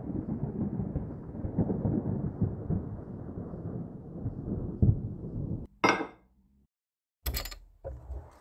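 A low, uneven rumble that lasts about five and a half seconds and cuts off sharply. Then comes a brief bright burst, and near the end two sharp clattering hits.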